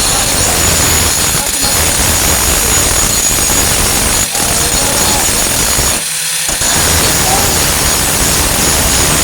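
4-1/2 in. angle grinder with a Type 27 grinding disc grinding steel on a truck tailgate, smoothing flux-core weld seams on a rust-repair patch. It runs steadily with a high whine, with two short drops in the grinding about four seconds and six seconds in.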